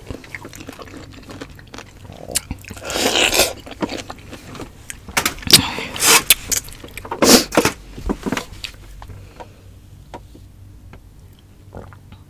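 Close-miked eating sounds of roast suckling pig and pineapple being bitten and chewed. The sounds come in several loud bursts of wet chewing and clicks during the first eight seconds, then turn fainter and sparse.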